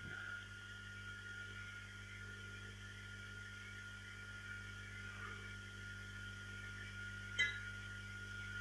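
Steady low electrical mains hum with faint hiss, and a single short click about seven seconds in.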